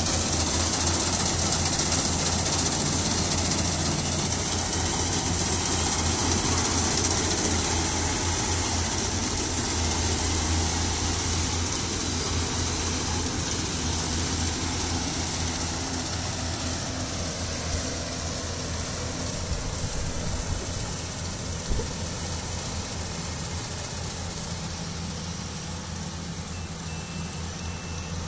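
Yanmar AW70GV crawler combine harvester's diesel engine running steadily under load as it cuts rice and crawls through deep mud. The sound fades gradually as the machine moves away.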